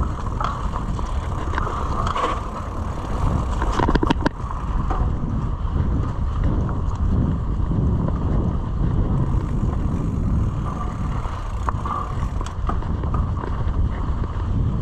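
Mountain bike riding along a dirt trail: steady wind buffeting on the microphone over the rolling and rattling of the bike, with a sharp clatter about four seconds in.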